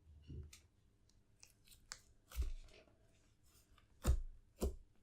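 Stiff slime, hardened to a putty-like consistency, being worked by hand: scattered small sticky clicks and crackles with a few louder pops, the loudest about two and a half and four seconds in.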